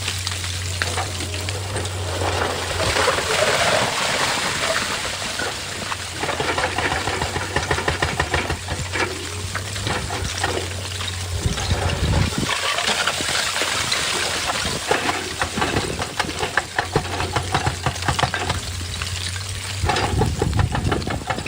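Excavator engine running with a steady low hum that drops out for a couple of seconds midway, over a rushing noise and many rattling clicks and knocks of rock and gravel being shifted.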